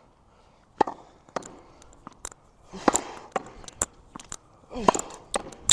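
A tennis ball being hit against a wall with a racket: sharp cracks of the strings on the ball, with the ball striking the wall and bouncing back, in an uneven rhythm of roughly one to two hits a second.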